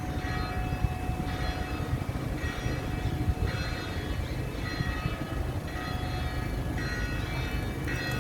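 Bells ringing in a sequence, about one strike a second, each stroke a different set of ringing tones, over a steady low rumble.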